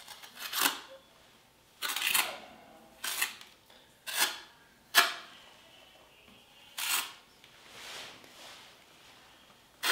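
Small hexagon tiles being handled and set, a series of about seven short, sharp clicks and scrapes spread unevenly over ten seconds.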